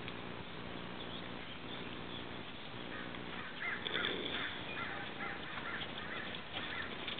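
A horse snoring while asleep lying down: a long, steady pitched breath, then a heavier snoring breath about four seconds in. Birds chirp repeatedly through the second half.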